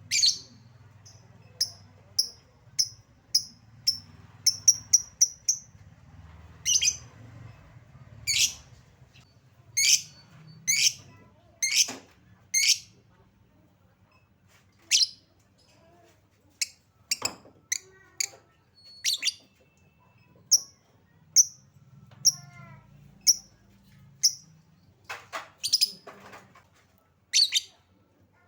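Lovebird giving loud, shrill, high-pitched chirps, one sharp call after another at irregular spacing with a few quick runs: a lure call used to set other lovebirds calling.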